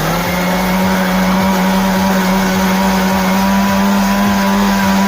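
Electric mixer grinder running with its juice jar full of chopped rose apples and water, blending them into juice: a loud, steady motor whine whose pitch creeps slightly upward.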